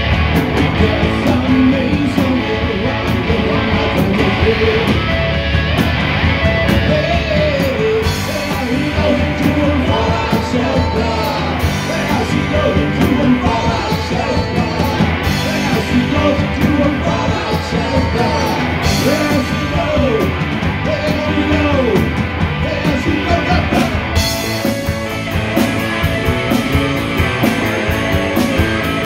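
Live amplified rock band playing: electric guitars, bass guitar and drum kit, with a singer.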